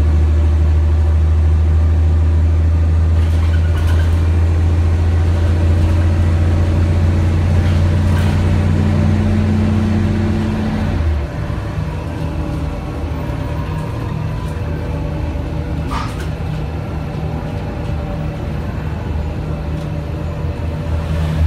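Cabin sound of a Mercedes-Benz O 405 NH bus under way, its M 447 hG CNG engine and ZF Ecomat automatic gearbox giving a loud, steady low drone. The drone drops away about eleven seconds in, and the bus runs on more quietly.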